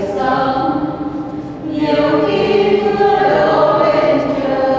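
Congregation singing a hymn together in slow, long-held notes.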